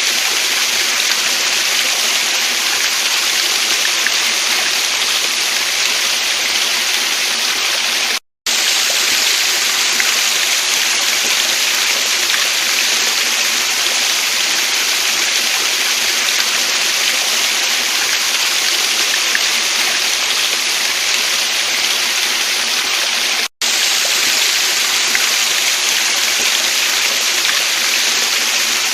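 Steady rushing water of a waterfall stream, an even hiss with no rhythm, cutting out abruptly to silence twice for a split second.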